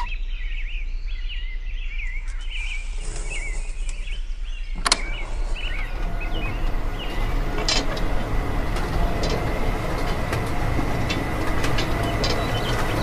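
A small electric motor driving a miniature DIY tractor's disc harrow starts with a click about five seconds in, as the wire is connected, then runs steadily with a thin whine while the rotating discs churn through sand. Faint bird chirps are heard before the motor starts.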